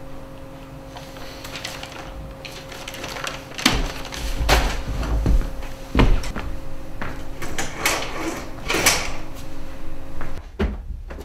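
Irregular knocks and heavier thumps over a steady low electrical hum, the hum cutting off suddenly near the end.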